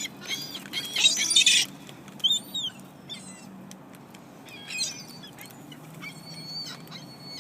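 Flock of small wild birds chirping and calling while they squabble over thrown food, with a dense burst of chirps about a second in and scattered calls after.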